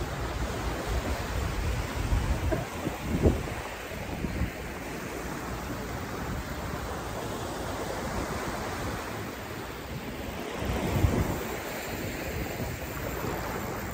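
Small waves washing up onto a sandy beach, with wind rushing over the microphone; the wash swells louder about three seconds in and again near eleven seconds.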